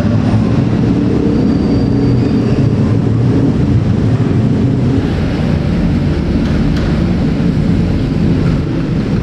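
Steady, loud low rumble of passing vehicles.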